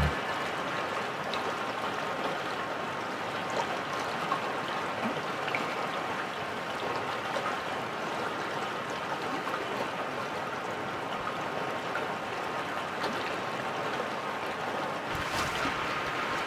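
A fast-flowing river rushing steadily over its bed, a continuous even flow of water.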